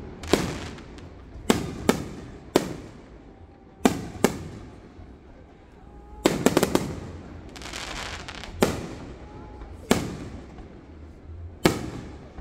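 Fireworks display: aerial shells bursting in sharp bangs every second or two, each trailing off in an echo, with a quick run of crackling reports about six seconds in.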